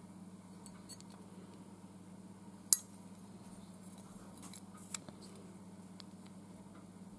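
Light clicks and taps of a die-cast toy car handled between fingers. About two and a half seconds in comes one sharp, loud click as the car's flip-up funny-car body is shut down onto its chassis, and a smaller click follows about two seconds later, over a faint steady hum.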